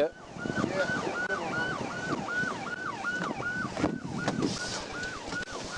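Police car siren on a fast yelp cycle, about three sweeps a second, each rising quickly to its peak and falling away; it grows slightly fainter near the end.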